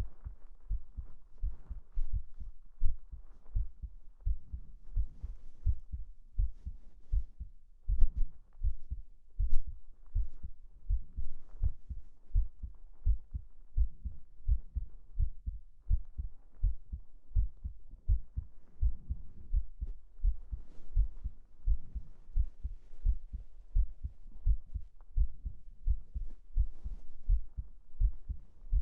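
Close-miked human heartbeat: a steady, even run of soft double thumps, with quiet fabric rustling from bedding and clothes over it.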